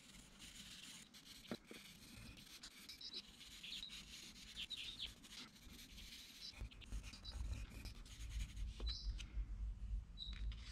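Faint scratching of a coloured pencil lead shading on paper in short strokes.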